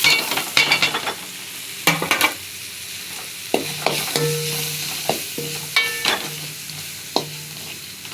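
Ladle stirring and scraping a spiced onion-tomato masala frying in oil in a kadai: irregular scrapes and taps over a steady sizzle. The masala is being sautéed until the oil separates.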